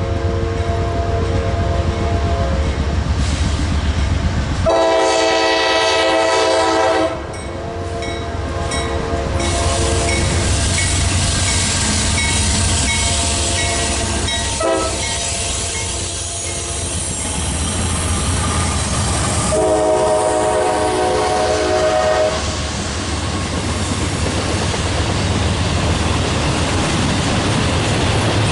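Freight locomotive air horn sounding a chord in several long blasts: one trailing off at the start, the loudest about five seconds in, and another about twenty seconds in. The steady rumble and wheel clatter of the passing train run underneath.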